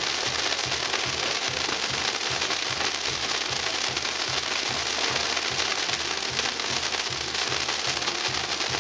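Castillo firework tower burning, its spark fountains giving off a continuous dense hiss and crackle. A band's drum beats steadily underneath.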